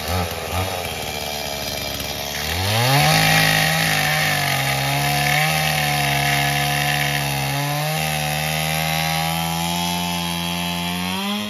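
Petrol chainsaw running at low revs, then revving up about two seconds in and held at high revs while it cuts through dry branches for firewood. The pitch dips briefly a couple of times under load, and the saw cuts off at the end.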